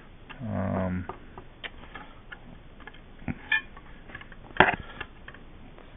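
Scattered clicks and knocks of metal being handled: steel smooth rods and the 3D printer's heat-bed plate with its linear bearings being moved about, the loudest knock about four and a half seconds in.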